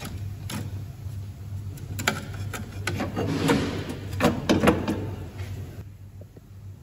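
Metal knocks, clanks and scrapes as a VW Polo Mk5's lower suspension arm is worked free and lowered out of the car, with a cluster of louder clanks about four and a half seconds in.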